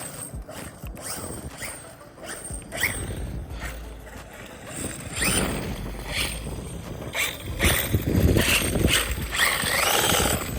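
Brushless electric motor of an HPI Baja 5B 1/5-scale RC car on 12S whining up in several short bursts as the throttle is punched, with the rear tyres spinning on loose dirt.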